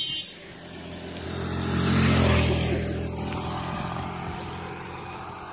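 A motor vehicle driving past on the road, its engine and tyre noise swelling to a peak about two seconds in, then fading away.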